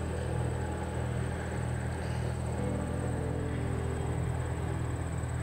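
Steady low rumble of outdoor background noise with a thin, steady high whine above it.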